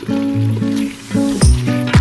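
Background music: held chords over a bass line, with a steady kick-drum beat of about two thumps a second coming in near the end.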